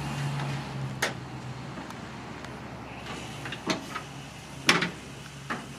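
Ratchet tie-down straps being hooked and tightened over a barrel grill in a pickup bed: a few separate sharp clicks and metal knocks, the loudest about three-quarters of the way through. A low hum fades out about a second in.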